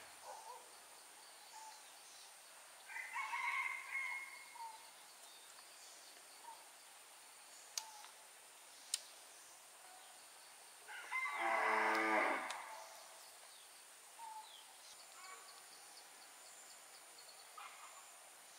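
Two drawn-out animal calls, the second about eleven seconds in, longer, louder and lower; two sharp clicks fall between them.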